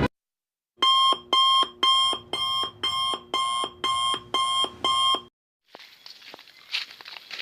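Electronic alarm-clock beeping, about two beeps a second for roughly four and a half seconds, then cutting off. After a short silence, faint outdoor ambience with a light hiss and a few clicks begins near the end.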